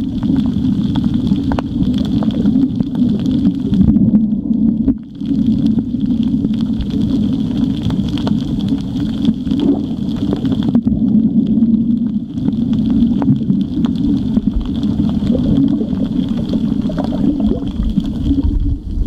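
Steady low underwater drone picked up through an underwater camera, with a fainter high whine above it and a brief dip about five seconds in.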